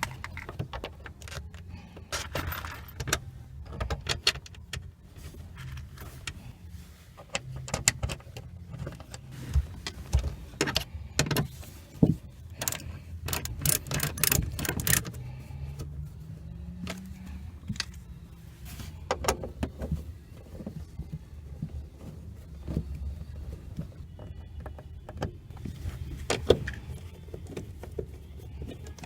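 Irregular metallic clicks, taps and rattles of screws and tools being handled while a car speaker is screwed into its door mount, over a steady low hum.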